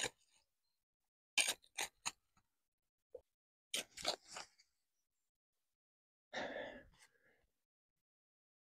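A hand tool scraping and cutting into soil and roots at the base of a banana sucker: two quick runs of three short strokes, then a longer rough scrape about six seconds in.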